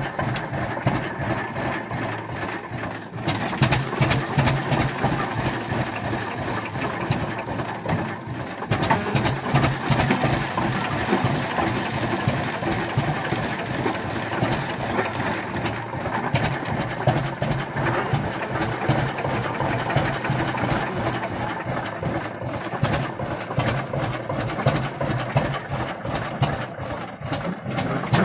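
Engine of a 1926 Rumely M winch tractor running as the tractor drives slowly, with a steady, rhythmic beat.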